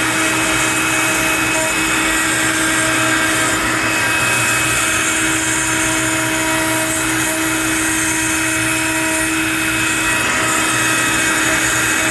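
CNC router with a 1/8-inch bit cutting a wooden board on a roughing pass: a loud, steady machine noise with a constant whine of several steady tones.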